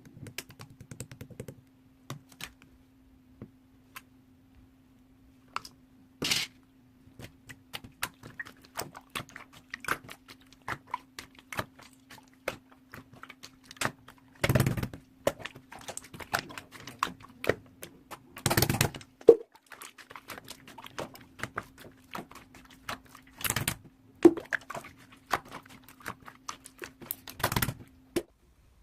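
Irregular clicking and tapping, with a few louder knocks or thumps, over a faint steady hum.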